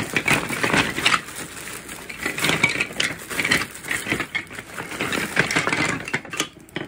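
Wooden toy train track pieces clattering against one another as they tumble out of a plastic bag onto a pile, with the bag crinkling. It is a dense run of clacks that thins out near the end.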